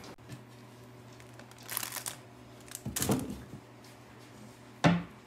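Rustling and crinkling of plush dog toys being handled in a toy bin, in a few short bursts, with a sharp bump near the end.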